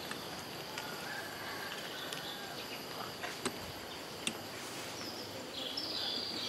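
Rural outdoor ambience: a steady high insect drone with scattered short bird chirps, a brighter burst of chirping near the end, and a few sharp ticks.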